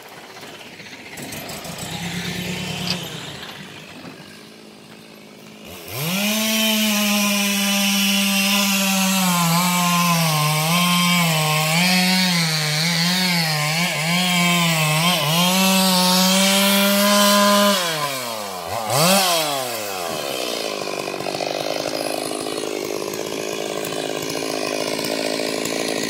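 Stihl two-stroke chainsaw that starts running at high revs about six seconds in, its pitch dipping and recovering about once a second as it saws wood. Near eighteen seconds in the revs drop and blip twice, and it settles into a lower, steady run.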